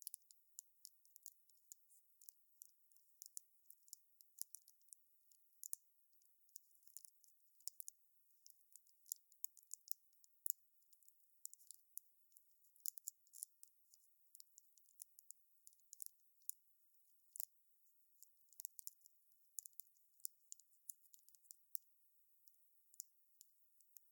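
Wood fire crackling: a thin, high crackle of irregular sharp snaps and pops, several a second, with no low roar of flame beneath.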